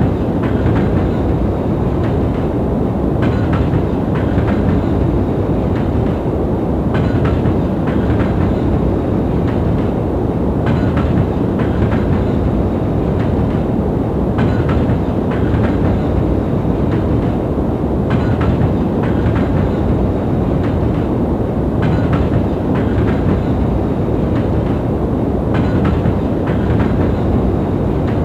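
Steady, deep rumbling noise with faint clicks that recur in small clusters about every three to four seconds.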